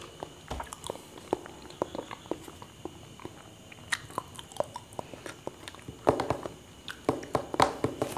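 Close-miked chewing and wet mouth clicks of someone eating soft ripe banana, with two louder clusters of sound near the end.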